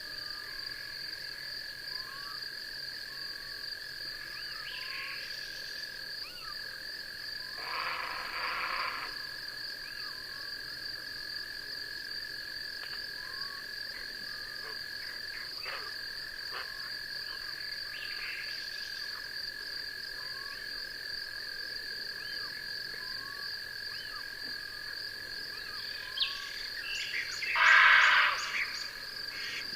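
Night chorus of insects and frogs: two steady high-pitched insect trills, with short chirps repeating about every second and a half. Two louder raspy frog calls of about a second each break in, the louder one near the end.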